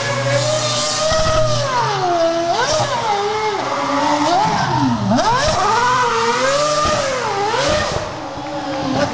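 Ferrari Formula 1 car's engine revving hard while it spins donuts, its pitch sweeping up and down over and over, with a deep drop about five seconds in. It gets quieter about eight seconds in.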